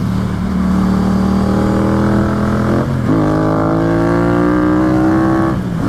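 Yamaha FZ-07's parallel-twin engine through a damaged Yoshimura exhaust, accelerating hard: revs climb, drop sharply at an upshift about three seconds in, climb again through the next gear and fall near the end.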